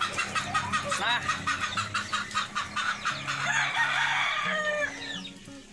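Roosters crowing and chickens clucking, with a quick run of clicks in the first few seconds.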